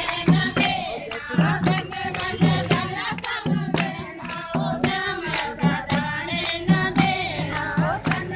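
Group devotional singing with a steady beat of hand clapping and percussion, about three claps a second, with regular low drum-like thumps underneath.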